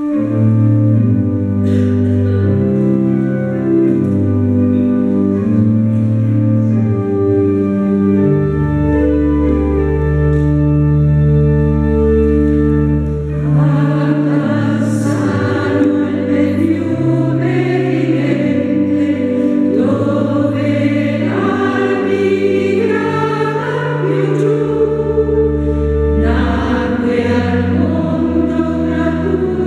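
Steady sustained instrumental chords with a deep bass play an introduction for about thirteen seconds. Then a women's choir enters, singing an Italian hymn over the accompaniment.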